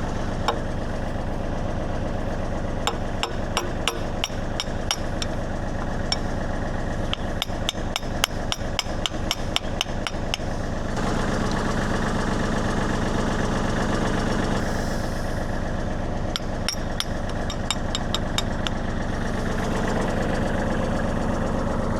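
Kubota L35 backhoe's diesel engine idling steadily. Over it come quick runs of light metal-on-metal taps through the first ten seconds and again about 17 seconds in, as a steel pin is worked back into the boom cylinder mount.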